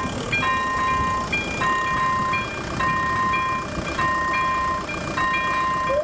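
Electronic warning bell of a level crossing ringing: the same chime of steady tones repeats about every 1.2 seconds while the crossing signals are active, over a steady low rumble.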